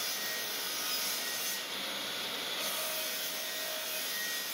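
Makita miter saw running, its blade cutting through a wooden door molding with a steady, even whine.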